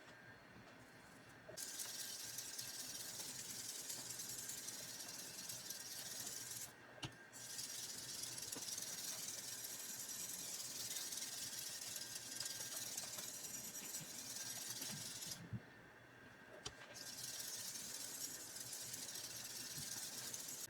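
Shun Sora chef's knife edge being ground against a sharpening abrasive to take out chips: a steady gritty hiss in three long passes, breaking off briefly twice.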